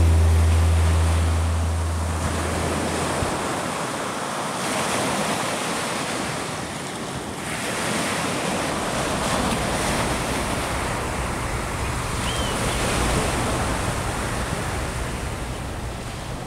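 Ocean surf washing onto a sandy beach, a steady rushing noise that swells and eases every few seconds. The tail of background music fades out in the first few seconds, and a single brief chirp comes about three-quarters of the way through.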